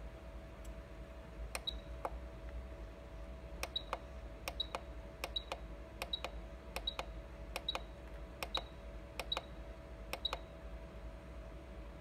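Control-panel buttons on a Blue Evolution S+ steam-vacuum cleaner pressed about ten times in a row, each press a click with a short high beep, stepping the amount of hot water released. A steady hum from the machine runs underneath.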